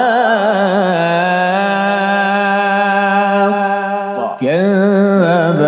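A man's voice chanting Quran recitation in the melodic mujawwad style, one long ornamented phrase with wavering turns near the start settling into a long held note. About four seconds in the voice briefly breaks with a dip in pitch, then comes back in on a new rising phrase.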